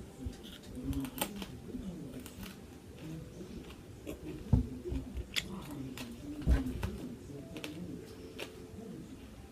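Scattered small clicks and mouth noises of someone eating a hard candy cane, with two heavier thumps about four and a half and six and a half seconds in.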